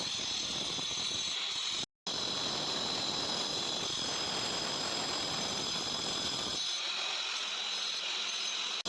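Stone cutting machine running steadily with a high whine over a dense gritty grinding noise as it cuts stone. It cuts out for an instant just before two seconds in, and the low rumble thins out near the end.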